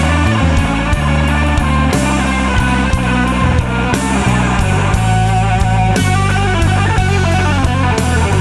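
A rock band playing, with electric guitar over a bass line that changes note about once a second and a steady drum beat.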